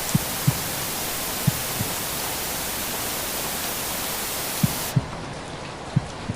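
Steady hiss of recorded rain with a slow heartbeat laid over it: pairs of soft low thumps, lub-dub, which stop for about three seconds in the middle and then return. Near the end the hiss turns quieter and duller.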